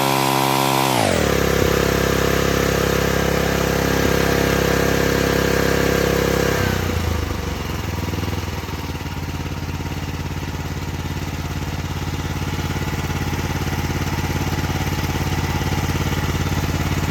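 Rippa Mule Trac mini excavator's petrol engine running. About a second in its speed falls sharply from high revs to a steady lower speed, and about seven seconds in it drops again to a lower idle.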